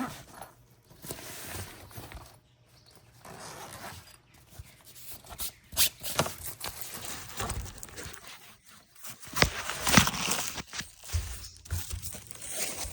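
Handling noise from a toolbox drawer: scattered clicks, knocks and rustling as tools and a diagnostic scan tool are shifted about and pulled out one-handed. The sharpest knocks come about six seconds in and around ten seconds.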